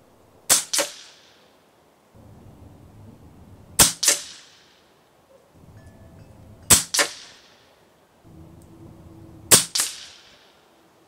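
Four shots from an RTI Arms Priest 2 PCP air rifle, about three seconds apart. Each is a sharp crack followed a fraction of a second later by a second crack.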